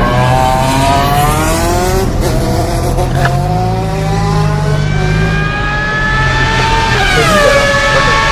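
Car engine accelerating, its pitch climbing steadily, with a gear change near the end where the pitch drops and then starts to climb again.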